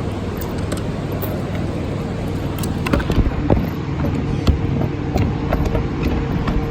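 Scattered light clicks and knocks of metal sockets being handled in a toolbox drawer, most of them in the middle, over a steady background hum.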